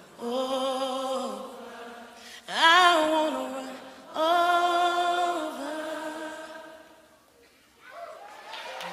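A single voice singing a worship song unaccompanied, in long held notes with vibrato; one phrase slides up about two and a half seconds in, and the singing fades near the end.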